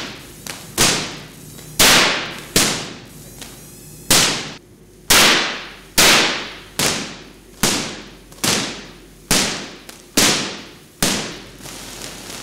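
Million-volt Van de Graaff generator discharging into a high-voltage test rig: a string of about a dozen sharp electric cracks, roughly one a second, each dying away in a short echo.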